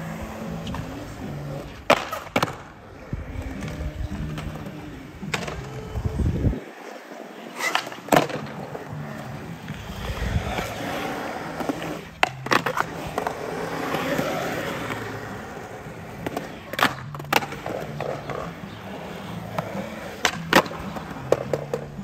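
Skateboard wheels rolling on concrete, with a string of sharp clacks and knocks as the board's tail and wheels strike the concrete and the coping of a bank.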